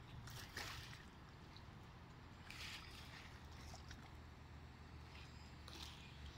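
Faint lapping of small lake waves, with three soft splashes over a low steady hum.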